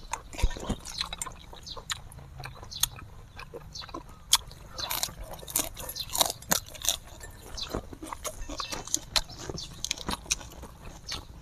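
Close-up eating sounds from two people: irregular wet chewing, lip smacks and slurps of instant noodles, with crisp bites into lettuce leaves.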